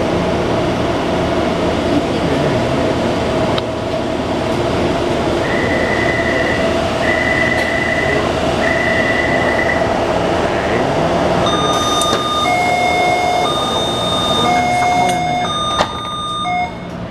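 Interior running noise of a refurbished Taipei Metro C321 train, a steady pitched whine over rumbling wheels, with an inverter the rider says is making an abnormal noise and wheels worn out-of-round. Partway through come three long electronic beeps, then a run of chime tones at several pitches near the end.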